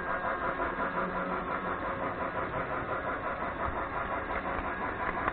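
Toy train running on its track with the camera riding aboard: a steady whir of its small electric motor and wheels, with a fast, fine rattle.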